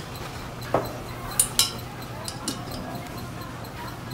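A few light metallic clicks and clinks of hand tools and a brass refrigerant can-tap valve being handled, over a steady low hum.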